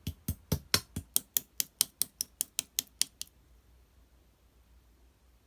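A quick, even run of about fifteen sharp clicks or taps, about five a second, which stops a little over three seconds in.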